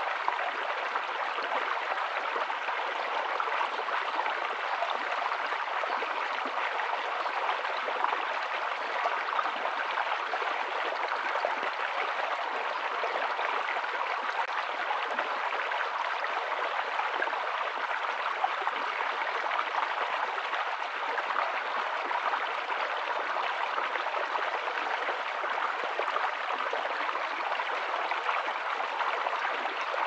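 Shallow rocky stream flowing and babbling over stones, a steady, even water sound throughout.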